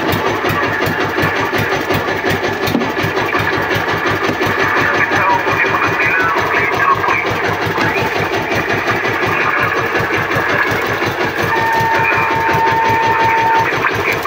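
Small fishing boat's engine running steadily, a rapid even chugging. Near the end a steady high tone sounds for about two seconds.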